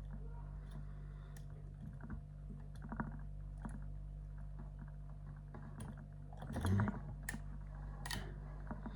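A lock pick clicking and scraping as it works the pins of an ISEO pin tumbler van slam lock held under tension: scattered small clicks, with a busier run of them about seven seconds in.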